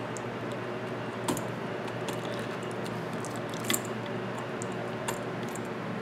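Handling noise of stiff 12-gauge copper wire being bent and worked around the terminal screws of a 20-amp outlet: light scraping with a few small clicks as the wire and the outlet are handled.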